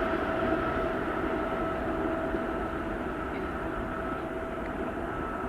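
SEPTA Regional Rail electric train running past, a steady rumble with a steady whine in it, slowly fading.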